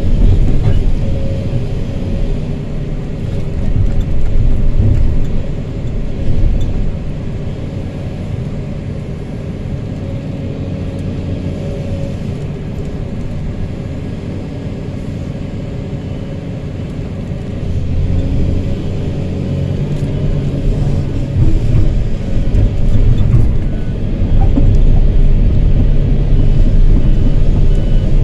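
Hydraulic excavator's diesel engine and hydraulics working, heard from inside the cab, as the machine swings and dumps a bucket of sand into a dump truck and then digs again. The low engine rumble swells and eases with the load, lightest in the middle and louder again for the last ten seconds.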